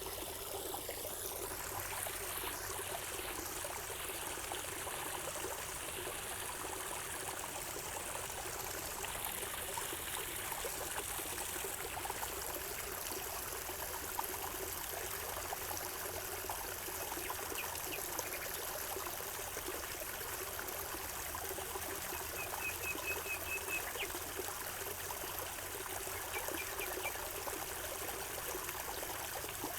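Water trickling and flowing steadily. A few faint short high chirps come through about two-thirds of the way in, one of them a quick run of several notes.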